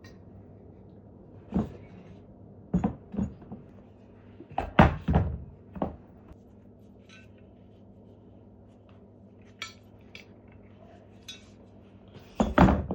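Metal pipe fittings being handled and set down, giving about eight irregular knocks and clinks, the loudest about five seconds in and again near the end.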